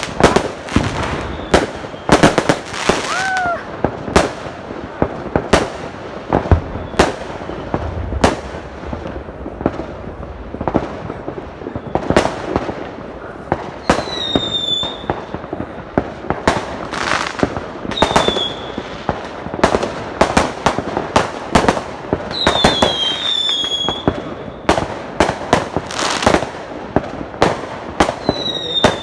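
Fireworks and firecrackers going off in rapid, irregular sharp bangs, with a few high whistles that slide down and then hold.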